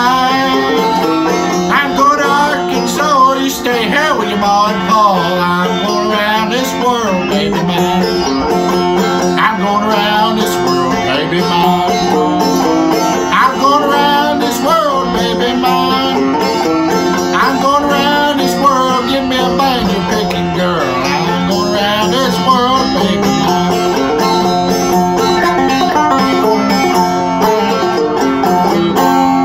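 Resonator banjo picked in a steady, continuous bluegrass-style roll. A man's voice sings over it in places.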